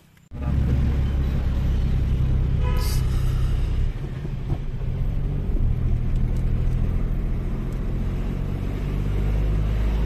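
Car cabin noise while driving on a hill road: a steady low rumble of engine and tyres, with air noise through the part-open side window, starting abruptly just after the start. A brief pitched tone sounds once about three seconds in.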